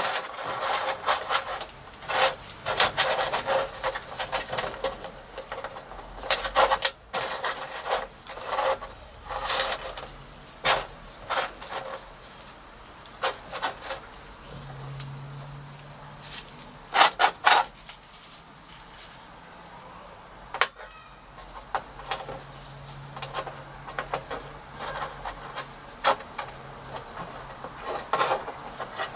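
Irregular clanks, knocks and scrapes of metal scrap and hand tools being handled and worked on a bench, with a faint low hum at times.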